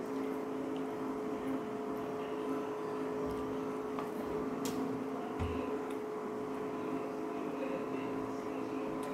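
A steady, even machine hum with a few faint clicks.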